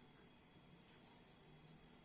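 Near silence: faint background hum, with a brief faint hiss about a second in.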